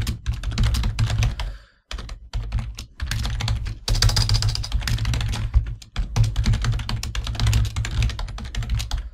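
Rapid typing on a computer keyboard: a dense run of key clicks, with brief pauses about two seconds in and again about six seconds in.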